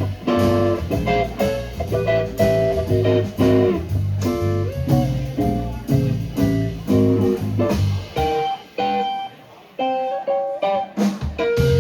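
Live blues band playing an electric-guitar riff over bass and drums. About eight seconds in the bass and drums drop out, leaving a guitar playing a few notes alone, then the band comes back in on a held chord near the end.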